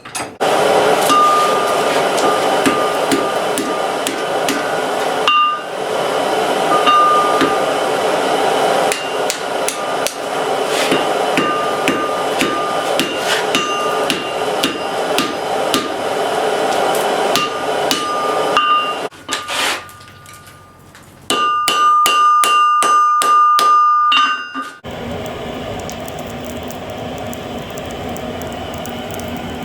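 Hammer blows on hot steel over an anvil: long runs of rapid strikes with the anvil ringing, a short pause, then a run of evenly spaced ringing blows. This gives way near the end to a steady rushing noise.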